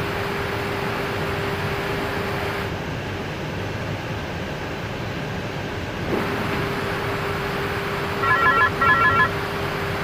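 Steady airflow and air-conditioning noise in an Airbus A320 cockpit during descent, with a steady hum that drops out for a few seconds in the middle. Near the end, an electronic ringing tone sounds in two short bursts, like a telephone ring.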